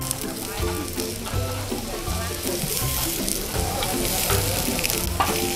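Hot steak plates sizzling on a grill as sauce and grilled meat go onto them, with background music.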